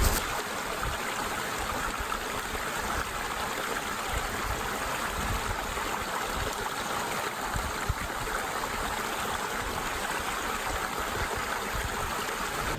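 A small woodland stream cascading over rocks into a pool: a steady rush of falling, splashing water.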